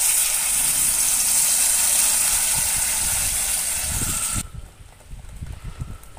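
Wet ground onion-tomato paste poured into hot oil in a stainless-steel kadhai, sizzling with a loud, steady hiss. The sizzle cuts off suddenly about four seconds in, leaving only faint low knocks.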